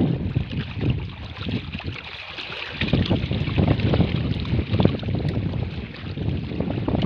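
Wind buffeting the microphone in uneven low rumbles over a steady hiss, dropping for a moment about two seconds in.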